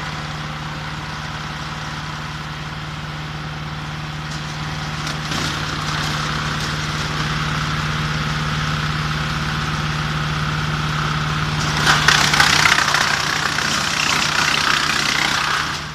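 Small wood chipper's diesel engine running with a steady hum. Partway through, the noise grows rougher, and about three quarters of the way in a loud, harsh grinding rises as wood is fed through and chipped. It drops away just before the end.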